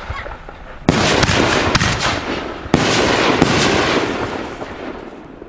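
Two 5-inch UV canister firework shells go off about two seconds apart. Each sudden blast is followed by a long hissing, crackling tail, and the second tail fades away near the end.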